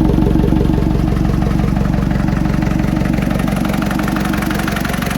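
Hino Dutro light truck's diesel engine idling with a steady, even clatter.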